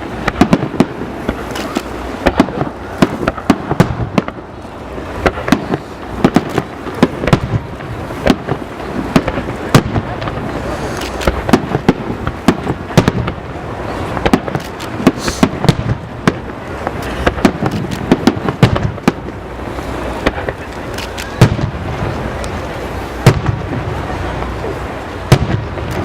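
Fireworks display: a dense, continuous barrage of aerial shells bursting, with sharp bangs several times a second and crackling over a steady rumble.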